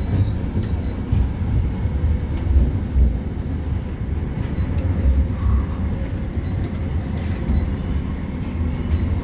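West Midlands Metro CAF Urbos 3 tram in motion, heard from inside the passenger saloon: a steady low rumble from the traction motors and wheels on rail, with a few faint ticks and a faint high whine in the second half.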